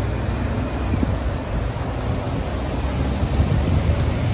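Wind buffeting the microphone: a steady low rumble with a hiss over it, on top of outdoor street ambience.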